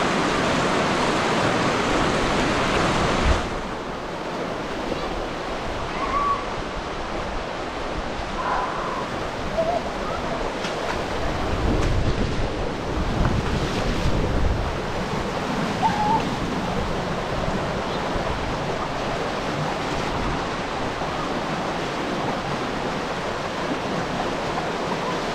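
Fast, shallow creek water rushing and churning through a narrow sandstone slot canyon: a steady loud noise of running water. It is brightest for the first three seconds or so, and a deeper rumble comes in around the middle as the camera dips close to the surging water.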